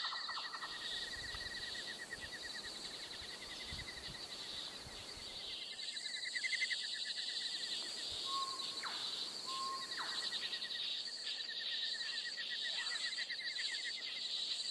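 Insects trilling steadily in rapid pulses, with a few short bird whistles and chirps about two-thirds of the way through.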